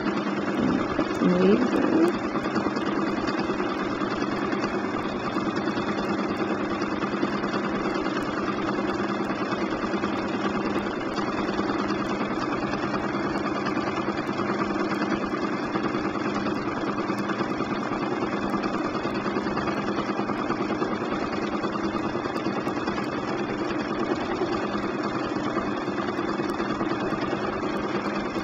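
Bernina 1260 sewing machine running steadily at constant speed, stitching free-motion quilting through the quilt layers. A brief rising sound comes about a second in.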